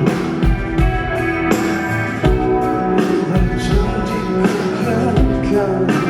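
A band playing rock-styled pop music with electric guitar, bass and drums, the low drum hits recurring through the passage.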